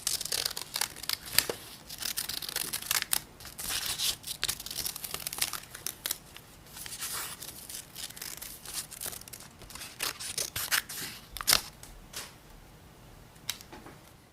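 A cutting-paper sound: an irregular run of short, crisp snips and rustles, thinning out and quieter near the end.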